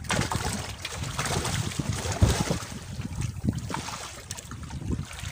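Water splashing and slapping as a large hooked fish thrashes at the surface and is hauled by hand up against the side of an outrigger boat, with irregular short splashes and knocks, the strongest about two seconds in.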